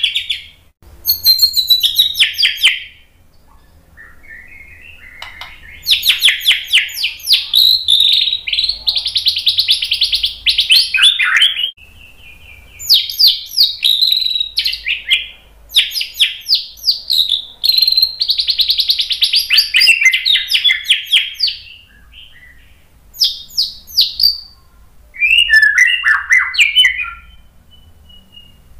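White-rumped shama singing in repeated bursts of rapid, high trills and varied whistled phrases, with short pauses between bursts.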